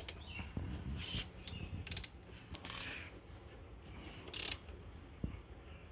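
Hand ratchet wrench being worked on engine bolts, in about four short bursts of clicking, with one sharp click near the end.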